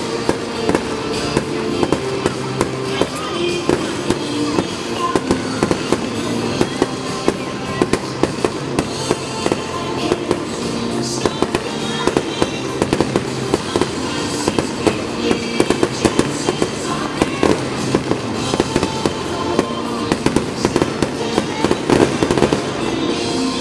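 Aerial firework shells bursting in quick succession, with sharp bangs and crackle, over music with held notes.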